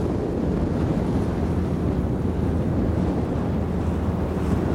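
Steady wind rumble on the microphone over open water, with the outboard motor of a fibreglass sport boat running at speed in the distance.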